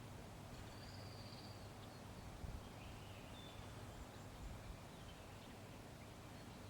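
Faint outdoor background noise with a steady low hum, a few short, high chirps, and two soft thumps, the first about two and a half seconds in.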